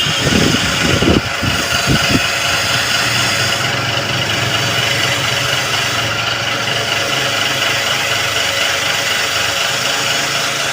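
A motor running steadily with a loud, even hum, with a few low thumps in the first two seconds.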